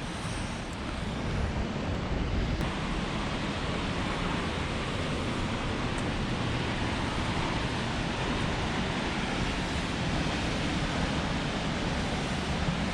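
Steady rushing of river water or falls, with no distinct events; it grows louder over the first couple of seconds and then holds.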